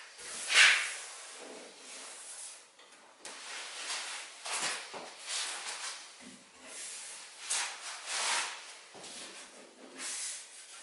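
Rustling of overalls and scuffing of shoes and hands on a concrete floor as a person crouches and lies down: a string of short swishes, the loudest about half a second in.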